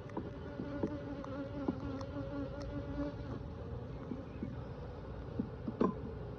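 Honeybees buzzing around an open hive, with one bee's buzz close by holding a steady pitch for about three seconds. Light scattered clicks run under it, and a sharper knock comes near the end.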